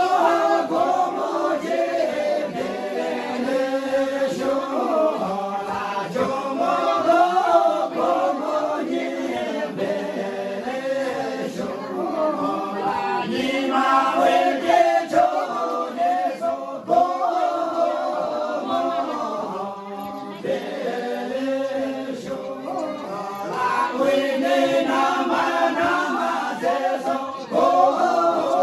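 A group of people chanting together, many voices joined in one continuous sung chant.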